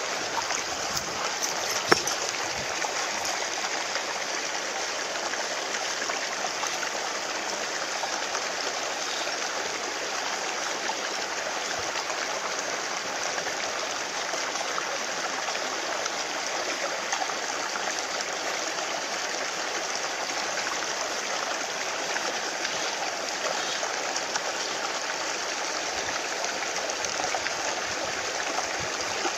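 Steady rush of flowing water, with a single sharp click about two seconds in.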